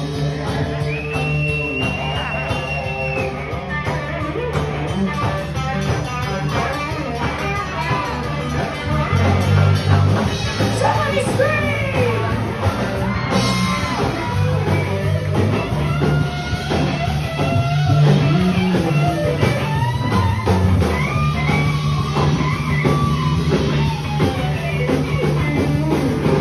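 Live band playing: electric guitar over steady bass notes, with a singing line.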